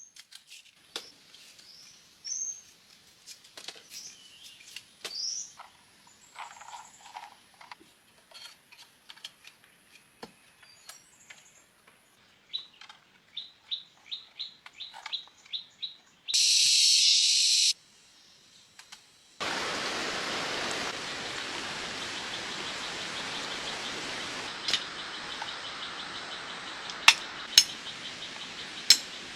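Birds chirping, with a quick run of repeated chirps, then a short loud buzzing burst. About two-thirds of the way in, a steady rushing hiss sets in and stays, broken by a few sharp cracks near the end.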